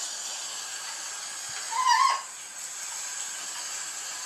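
A short animal cry about two seconds in, with a clear pitch that dips at the end, over a steady high hiss.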